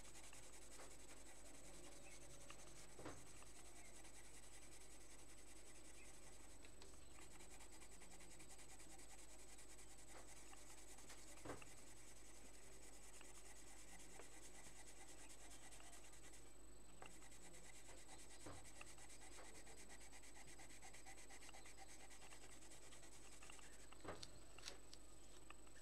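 Faint scratching of a coloured pencil rubbed back and forth on paper as an area is shaded in, with a few light taps.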